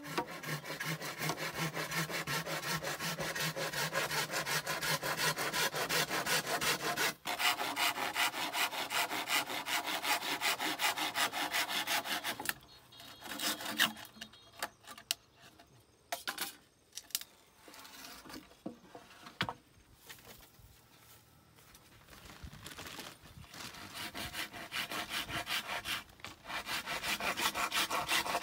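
Hand saw cutting through bamboo in fast, even back-and-forth strokes, stopping about twelve seconds in. After a stretch of scattered knocks and rustles, the sawing starts up again near the end.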